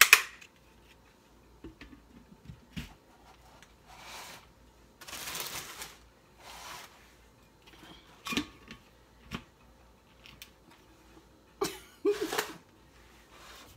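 Clicks and knocks of blender parts being handled, fitted and snapped together, the loudest a sharp click at the start, with soft rustling in between.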